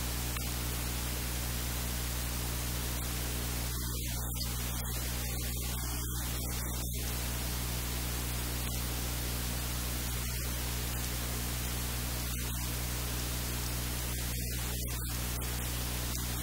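Steady hiss of static with a low electrical hum under it, even and unchanging throughout.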